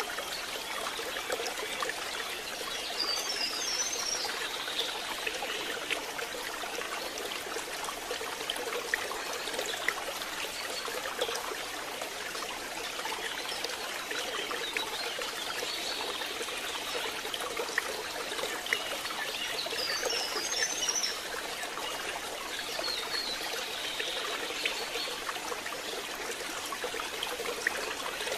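Steady rain, with water trickling and dripping as a constant hiss sprinkled with small drip ticks. Brief high chirps come about three seconds in and again around twenty seconds.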